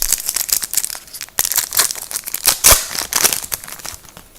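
Wrapper of a trading card pack being torn open and crumpled, a dense crinkling with a short pause a little over a second in.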